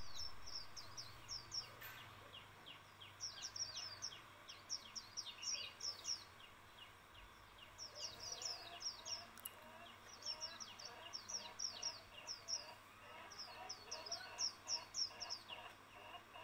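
Faint birdsong: runs of quick, high, falling chirps, several to a run, repeating over a soft background hiss.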